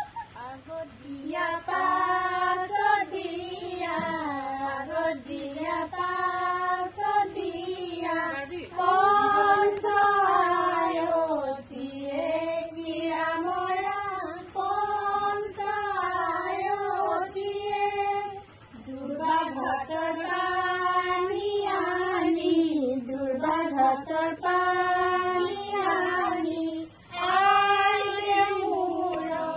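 High-pitched unaccompanied singing in long held, wavering notes, phrased in lines a few seconds long with short breaths between.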